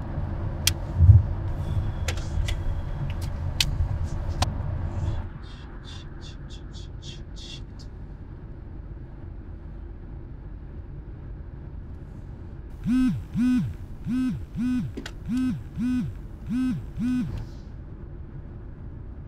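Car-interior rumble with a few sharp clicks that cuts off abruptly about five seconds in, followed by a quick run of high electronic pips. Later a phone sounds eight short pulsing tones in pairs over a low steady car rumble.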